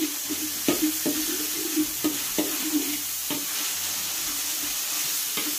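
Ground beef sizzling in hot oil in a wok, with a spatula scraping and clacking against the pan as it presses and breaks up the meat. The clacks come irregularly, several in the first three seconds and once more near the end, over a steady sizzle.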